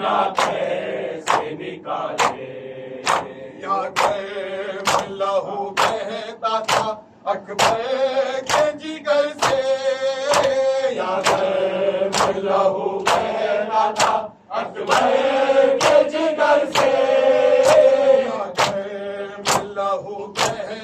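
A group of men chanting a Muharram nauha (lament) in unison, over the crowd's matam: open hands striking chests in an even beat, about one and a half strikes a second.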